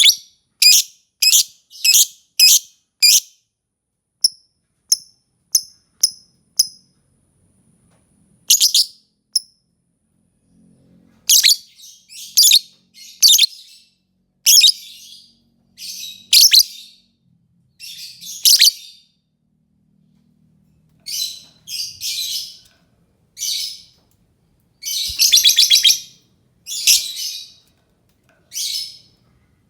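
Lovebird calling in a series of short, shrill chirps, quick at first and then more spaced out, with one longer, rasping call about three-quarters of the way through.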